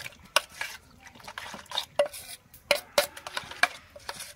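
Metal spoon stirring beaten eggs and fried potato slices in a stainless steel bowl, clinking and scraping against the bowl's side in irregular strokes.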